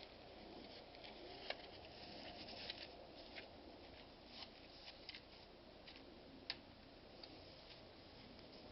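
Near silence: faint background hiss with a few scattered light clicks and ticks.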